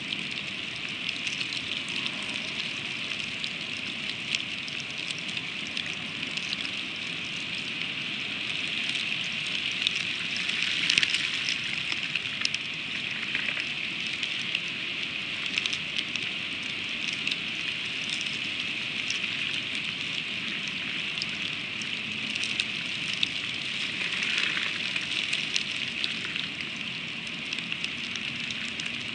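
Freezing rain falling steadily, a constant hiss made of many small ticking drops.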